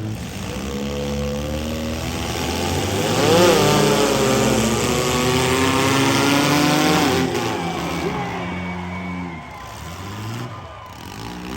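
Several compact and midsize cars' engines running and revving at once, their pitch climbing and falling, loudest about three and a half seconds in and easing off near the end.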